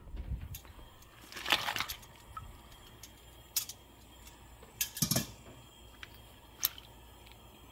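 Kitchen handling sounds as rinsed dried anchovies and kelp are put from a metal mesh strainer into a stainless pot of water: a short rustling clatter about a second and a half in, then a few separate clicks and knocks, the loudest about five seconds in.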